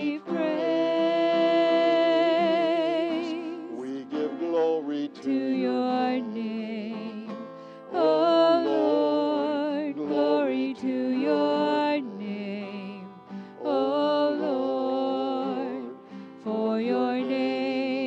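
A man singing a slow worship song to his own acoustic guitar, holding long notes with a wide vibrato in phrases broken by short pauses.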